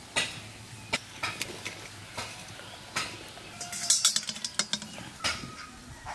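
Wire skimmer clinking against steel cookware as boiled eggs are scooped out of the hot water into a bowl. A string of sharp metal clinks and knocks, with a quick flurry of them about four seconds in.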